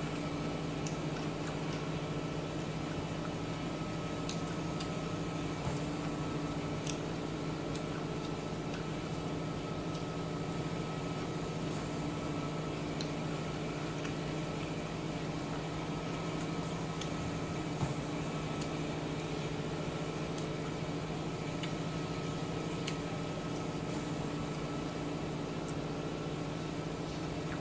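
Steady mechanical hum made of several constant tones, from an unseen household appliance or fan, with faint scattered clicks of chopsticks against the bowl.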